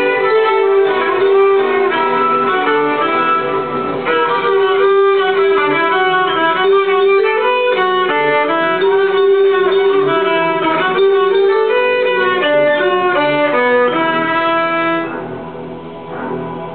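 Violin playing a fast film-score melody over a recorded play-along accompaniment track. The music gets quieter near the end.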